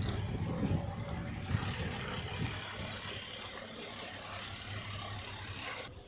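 A car engine running as the vehicle moves off and fades away, with general street noise.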